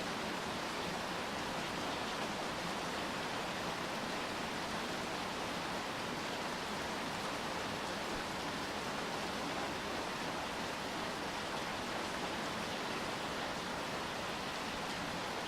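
Steady rain falling, an even hiss with no separate drops or other sounds standing out.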